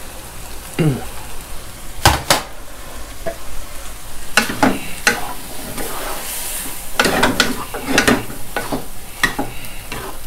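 Wooden spatula scraping and knocking against a nonstick frying pan in irregular strokes while stir-fried shrimp and squid in chili paste sizzle.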